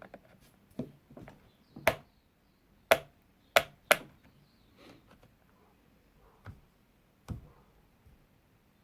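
Sharp metallic clicks and knocks, about a dozen spaced unevenly, the loudest few coming between two and four seconds in, from chainsaw parts being handled while the bar and chain tension is adjusted.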